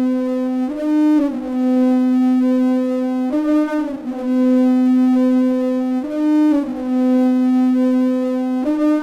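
A steady, buzzy electronic tone held on one low note, stepping briefly up to a slightly higher note about every two and a half seconds in a repeating pattern.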